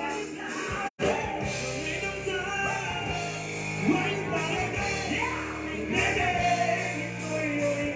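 Live rock band playing: electric guitar and drums with a singer. The sound cuts out completely for a split second about a second in.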